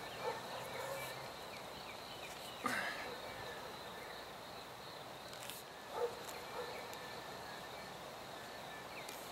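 Faint outdoor ambience with a steady high insect drone, broken a few times by soft clicks and knocks from handling the plastic drip-irrigation fittings and tubing.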